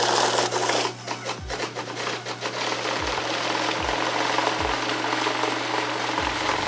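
Electric bill counter running a thick stack of one-dollar bills through: a steady whir of paper riffling past over the constant hum of its motor.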